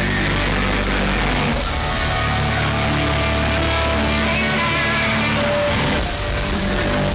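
A heavy rock band playing live and loud, with distorted electric guitar, picked up by a phone microphone in the crowd. The deep low end drops away about a second and a half in, leaving sustained guitar notes over the band, and comes back about six seconds in.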